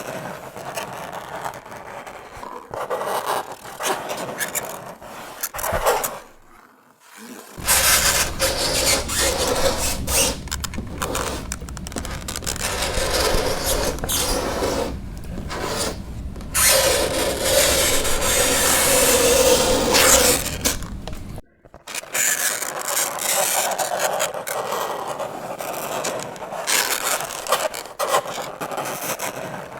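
Fingernails scraping across a chalkboard in a run of strokes, with a brief break about seven seconds in. In the middle stretch a low hum sits underneath, and a drawn-out squeal is held for several seconds before it cuts off about twenty-one seconds in.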